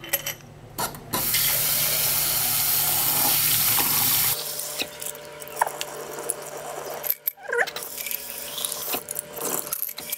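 A kitchen tap runs into a glass mason jar for about three seconds and shuts off suddenly. Water is then swished and poured out of the jar into the sink drain, with light clinks as the steel studs and nuts inside knock against the glass.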